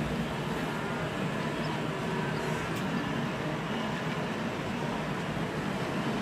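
Steady din of a large wildebeest herd crossing a river: many low grunting calls blend together over the rush of fast-flowing water.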